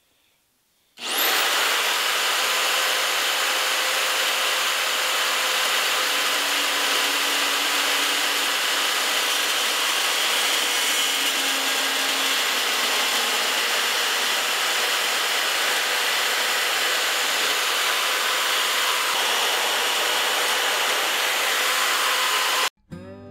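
Bandsaw cutting through a steel framing square: a steady, loud hiss of the blade in the steel with a faint whine from the saw, starting about a second in and cutting off suddenly near the end.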